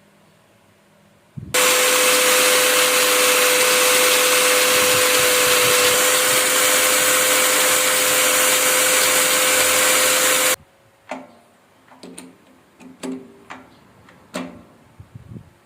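A power tool runs steadily for about nine seconds, starting and stopping abruptly, with a steady hum under a loud hiss. It is followed by a few light knocks.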